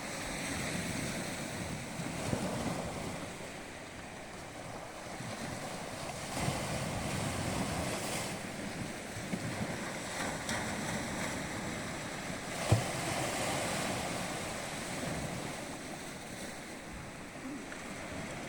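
Sea waves washing in and drawing back, a steady rush that swells and eases every few seconds. There is one short sharp thump about two-thirds of the way through.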